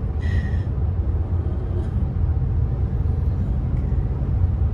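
Road noise heard inside a moving car: a steady low rumble of tyres and engine over rough pavement.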